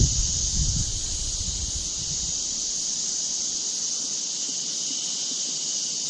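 A steady, high-pitched insect chorus buzzing without a break, with a low rumble of wind or handling noise in the first couple of seconds.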